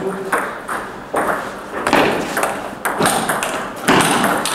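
Table-tennis ball struck back and forth between rubber bats and bouncing on the table in a serve and rally: a run of sharp clicks about every half second to a second, with hall echo.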